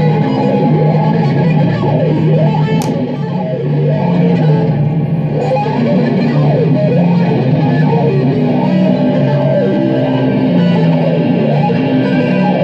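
Improvised electric guitar playing in dense clusters of notes, with many quick rising and falling pitch sweeps over steady low held tones.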